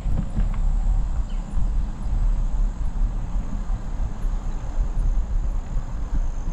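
A mountain bike rolling along a dirt trail: a steady low rumble of tyres and wind buffeting the microphone, with a few light rattles in the first half-second.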